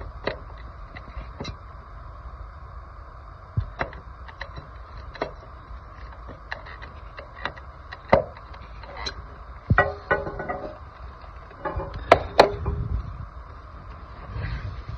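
Scattered clicks, taps and knocks of plumbing parts being handled while a toilet is fitted, with a few short squeaks about ten and twelve seconds in, over a faint steady hum.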